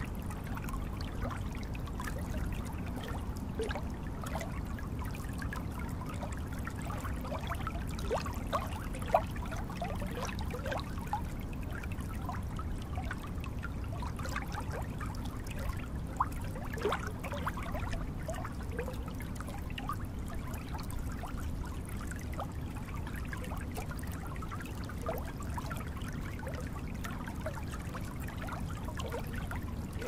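Water trickling and burbling: a steady low rush dotted with many small bubbling plinks, with a couple of slightly louder plops.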